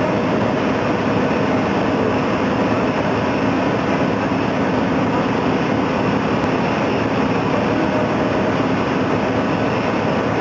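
A high-pressure jet of sand-laden water blasting out of a perforating tool: a loud, steady rushing noise, with a faint steady machine hum underneath.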